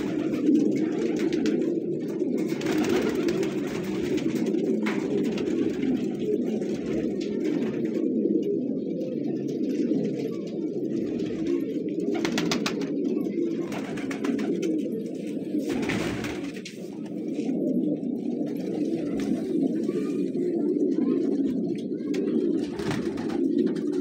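A flock of domestic fighter pigeons cooing continuously, many low coos overlapping without a break.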